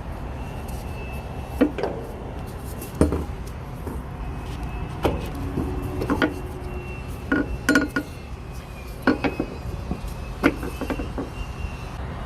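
Hand tools and metal truck parts clinking and clanking at irregular intervals, some hits ringing briefly, over a steady low rumble.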